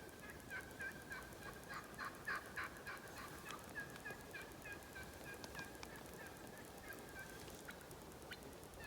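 Merriam's wild turkey calling faintly: a long run of short, evenly repeated notes that stops about seven seconds in.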